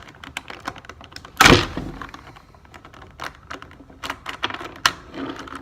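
Plastic Rubik's Cube pieces clicking and knocking as the cube is handled and its last pieces are pressed back in, with one loud knock about a second and a half in.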